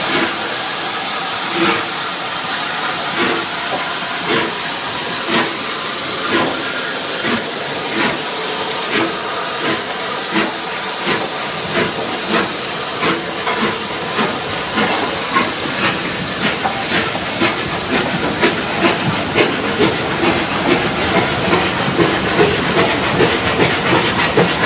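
Three-cylinder Bulleid Merchant Navy class Pacific steam locomotive pulling away: a loud steady hiss of steam with a string of beats that come closer together as it gathers speed and its coaches roll past.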